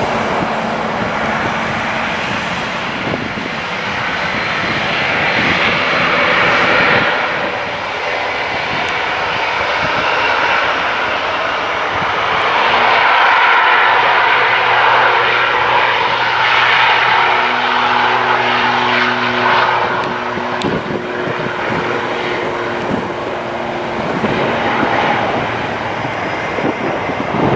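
Airliner's engines running loud as the plane passes, swelling to its loudest about halfway through, with a steady low hum in the middle part.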